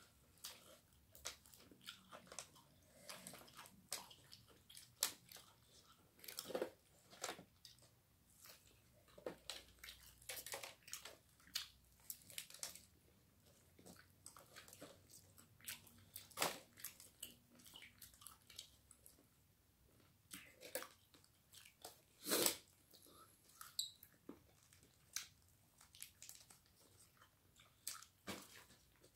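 Faint, irregular crunching and chewing of crispy breaded fried chicken, with short crackles as the crisp coating is bitten and torn apart by hand.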